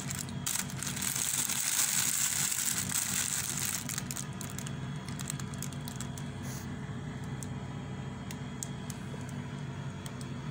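Clear cellophane wrapping on a flower bouquet crinkling and crackling as it is handled, densest in the first few seconds, then scattered crackles, over a steady low hum.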